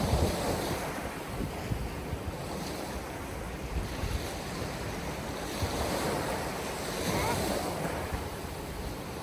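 Surf washing on a beach with strong wind buffeting the microphone, the rush swelling and easing as waves come in.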